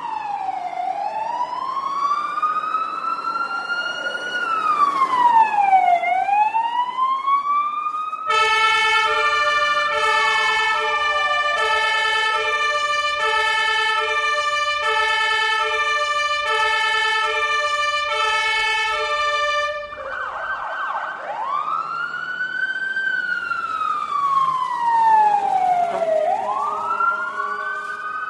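Fire engine siren: a slow wail rising and falling every few seconds, switching about a third of the way in to a two-tone high-low pattern that alternates about once a second, then back to the wail near the end.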